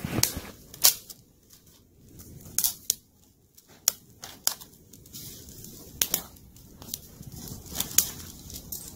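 Thin dry twigs snapping and crackling at a small campfire as sticks are broken and fed onto it. The sharp snaps come irregularly, about one a second.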